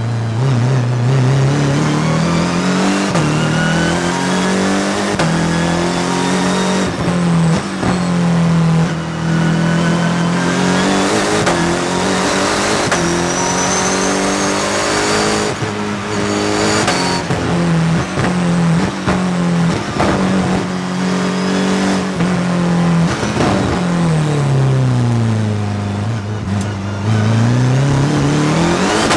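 The 1300 hp BMW Motorsport P63 twin-turbo V8 of the Bergsteiger E36 M3 hill-climb car at race pace, heard from a roof-mounted camera. Its pitch climbs and drops again and again with throttle and gear changes. Near the end it falls to its lowest, then climbs hard again.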